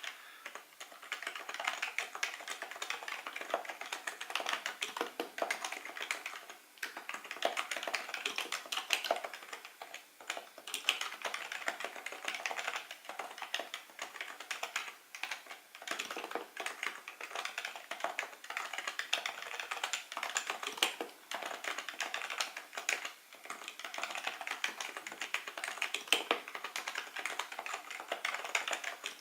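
Rapid, continuous typing on a Happy Hacking Keyboard Professional2 Type-S, its Topre capacitive key switches giving a dense stream of key strokes, broken by a few brief pauses.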